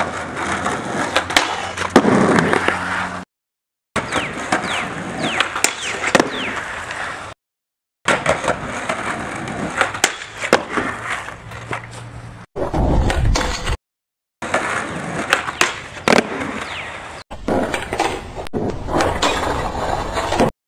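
Skateboard rolling on concrete, with sharp clacks of the board popping and landing and the scrape of trucks grinding a metal flatbar, over several short takes. The sound drops out to silence for a moment between takes, about three times.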